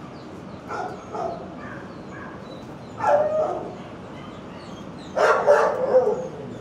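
Shelter dogs barking in the kennels: a single bark about three seconds in, then a quick run of several louder barks about five seconds in, with fainter yips in between.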